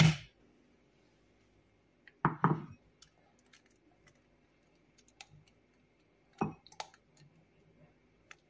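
A hen's egg knocked a few times against the rim of a drinking glass to crack it: one sharp knock at the start, two close together a little after two seconds, another about six and a half seconds in, with small faint clicks of the shell being pried apart between them.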